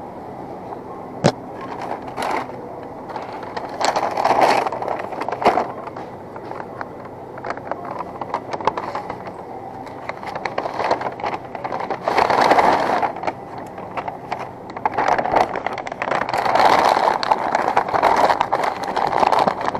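Loaded shopping cart rolling across a hard store floor, its wheels rattling and rumbling in uneven surges, with one sharp click about a second in.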